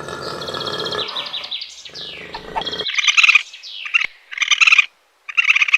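High-pitched animal calls: a pulsing chirp and quick falling glides, then three short, rapid trills.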